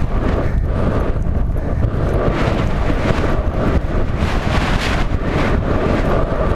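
Loud wind buffeting the microphone of a rider-worn camera as the horse gallops across open grass, a steady rushing with irregular gusty surges.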